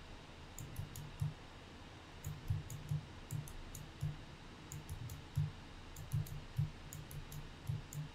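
Computer mouse buttons clicking, a few clicks a second at uneven intervals.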